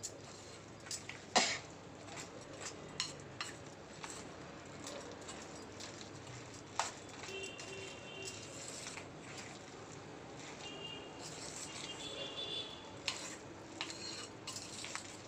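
A spoon stirring thick sago-and-potato vada batter in a stainless steel bowl: soft squelching with irregular clicks and scrapes of the spoon against the steel.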